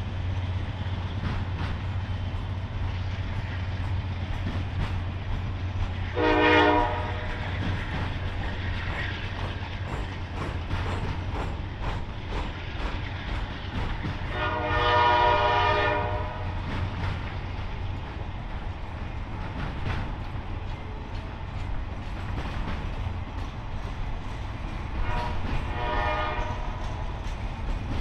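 Norfolk Southern diesel locomotive's air horn sounding three times, a short blast, a longer one and a fainter one near the end, over the steady low rumble of the train running by.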